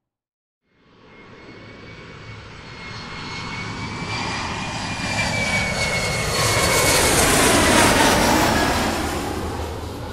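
Airplane flying over: after a brief silence its engine sound comes in faint and grows steadily louder, is loudest about eight seconds in, then starts to fade. Its whine drops in pitch as it passes overhead.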